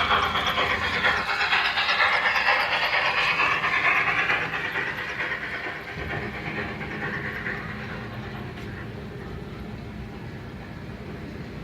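Toy train running along its track, loudest for the first half and fading away after about six seconds.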